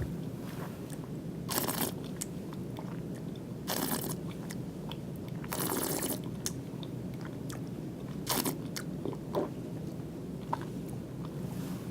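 A wine taster slurping a mouthful of red wine, drawing air through it in about four short noisy bursts, with small wet mouth clicks between them.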